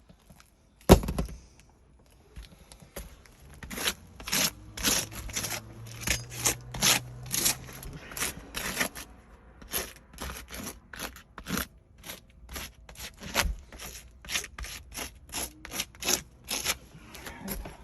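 A sharp knock about a second in, then a long, irregular run of short scraping, crunching strokes on roof shingles, roughly two a second.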